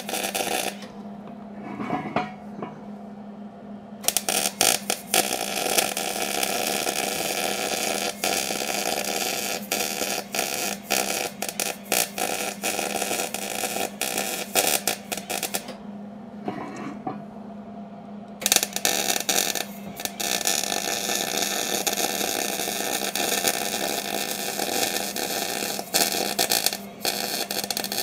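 MIG welder arc crackling and spitting steadily while a bead is run around a stuck wheel-bearing race inside a truck hub. The arc stops for a few seconds about a second in and again a little past halfway, then strikes up again.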